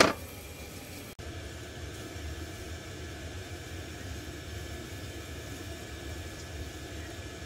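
A sharp knock right at the start, then a steady low rumble with a faint hiss and nothing standing out.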